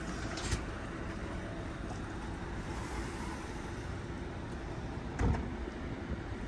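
Steady engine and road rumble heard from inside a bus, with a short low thump about five seconds in.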